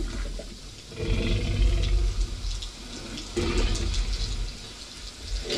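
Film soundtrack: heavy rain with the deep, rumbling breaths of the Tyrannosaurus rex, two long ones, about a second in and again past three seconds.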